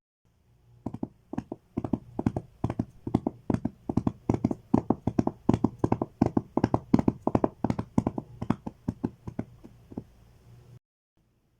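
Clip-clop of horse hooves: a steady run of sharp knocks, about four a second, starting about a second in and stopping near the end.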